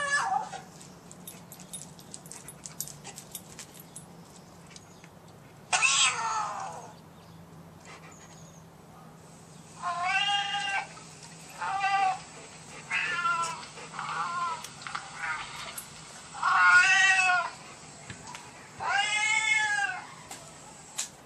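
Recorded cat meows played from the Cat Lingo app through a phone's speaker. One loud meow comes about six seconds in, then a run of meows every second or two from about ten seconds on, each rising and falling in pitch, the longest ones near the end.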